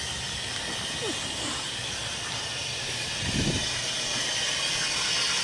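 Kitchen faucet running water into a filling sink: a steady hiss that slowly grows louder.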